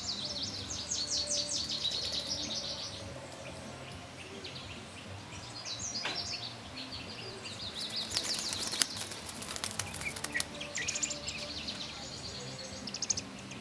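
American robin nestlings chirping in bursts of rapid, high notes that come and go, typical of chicks begging for food. A few sharp clicks come about eight to nine seconds in.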